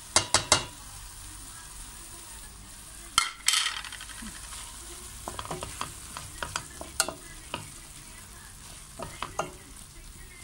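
Vegetables sizzling as they fry in a stainless steel pot while a utensil stirs and scrapes through them, with scattered clicks against the pot. A few sharp knocks near the start as chopped garlic is tipped in from a bowl.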